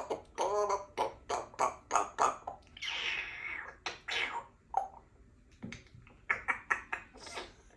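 Congo African grey parrot chattering in quick, short, pitched syllables and clicks, with a hissing rush about three seconds in, then more short calls near the end.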